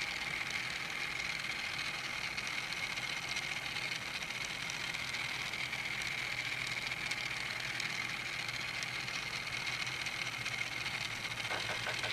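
Steady whir with a constant high whine from the battery-powered drive of a Teeny Trains 1/1000-scale electric train set as the train circles its track. A few light ticks come in near the end.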